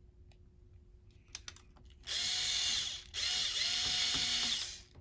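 Small power screwdriver driving laptop screws back in: two runs of about a second each, the second a little longer, with a steady whine. A few light clicks come just before.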